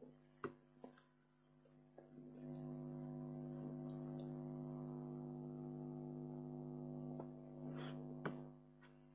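A steady low hum swells up a couple of seconds in and holds for about six seconds before fading. A few sharp clicks and knocks sound over it.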